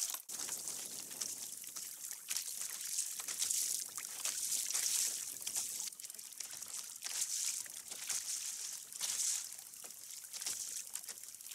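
Sea water sloshing and lapping against a kayak hull: a splashy hiss that swells and fades every few seconds, with a few small sharp knocks.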